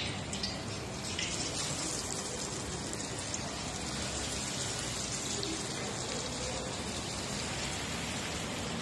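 Hot oil in a wok sizzling and bubbling steadily as marinated chicken pieces are dropped in to deep-fry.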